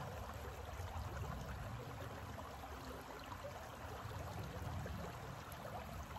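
Shallow rocky creek running over stones: a steady rush of flowing water.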